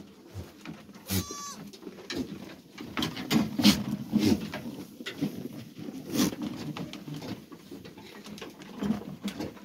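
A herd of goats crowded together, with one short bleat about a second in over continuous shuffling, rustling and scattered knocks.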